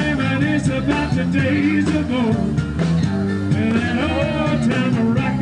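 Rock and roll song with a singer's voice over a steady bass line.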